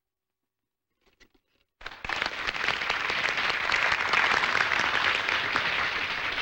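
Near silence, then about two seconds in an audience breaks into steady applause.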